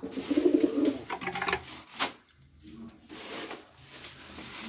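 Domestic pigeons cooing, loudest in the first second, with wing flapping and a sharp clap about two seconds in.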